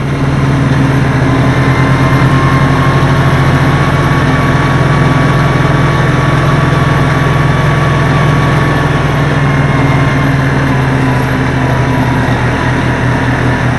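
Snowmobile engine running steadily as the machine travels across the ice, heard close up from the rider's seat.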